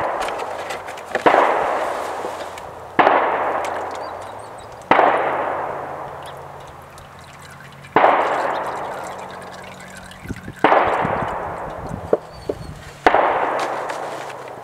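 Aerosol cleaner sprayed onto a tractor engine in repeated short blasts. There are about seven hissing bursts, each starting sharply and fading over a second or two.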